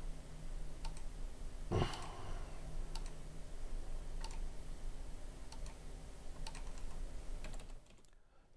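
Scattered clicks of a computer keyboard and mouse, about one a second, over a faint steady hum.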